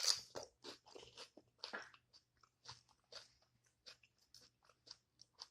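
Close-up crunchy chewing of a Wendy's taco salad with tortilla chips: a loud bite-crunch at the start, then a quick, uneven run of softer crunches as it is chewed.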